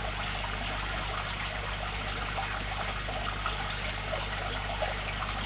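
Aquarium filter water trickling steadily, over a low steady hum.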